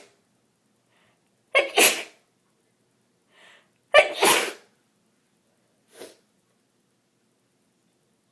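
A woman with a bad head cold sneezing: two loud, sharp sneezes about two and a half seconds apart, each in two quick parts. A short, much softer one follows about six seconds in.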